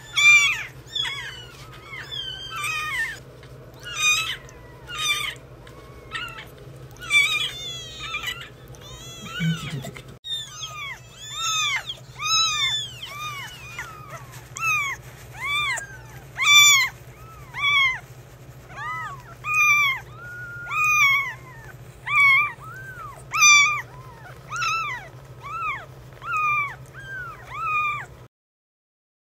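Neonatal kitten mewing over and over in short high-pitched cries, each rising then falling in pitch, about one or two a second, as its belly and bottom are rubbed with a tissue to stimulate it to toilet. The cries stop abruptly near the end.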